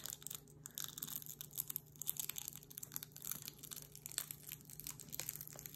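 Metallic transfer foil, taped down, being peeled slowly off vegan leather after heat engraving: faint, irregular crinkling and crackling.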